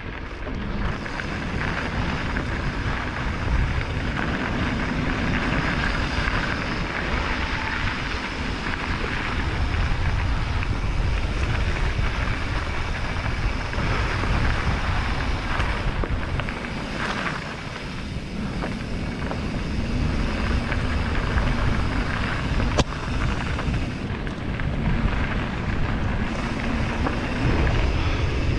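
Wind rushing over a GoPro Hero 8's microphone while a mountain bike rolls on gravel and dirt: a steady, deep noise that keeps up without a break.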